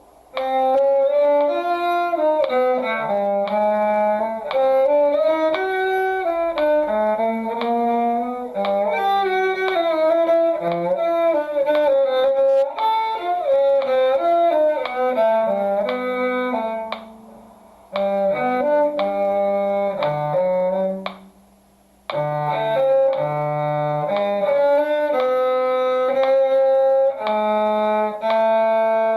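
Bowed strings playing a two-part duet, a low cello line under a higher melodic line, with two short breaks in the playing about 17 and 21 seconds in.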